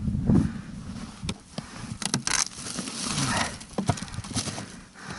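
Irregular knocks, clicks and rustles of fishing gear and catch being handled on snow and ice.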